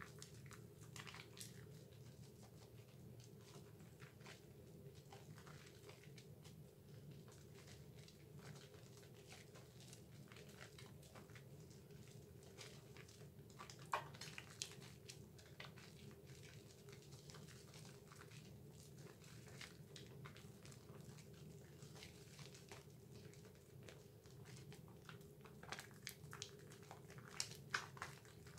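Faint wet squishing and squelching of hands lathering a bar of Dove soap into thick foam, with a couple of sharper squelches about halfway and several near the end. A low steady hum runs underneath.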